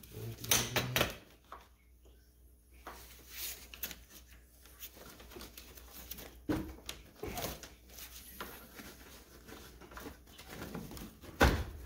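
Scattered knocks, clicks and rattles of a radiator and its fan housing being worked loose by gloved hands and shifted one side at a time past bent mounting brackets.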